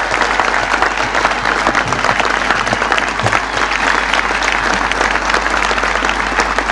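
Large outdoor crowd applauding steadily, a dense even patter of many hands clapping.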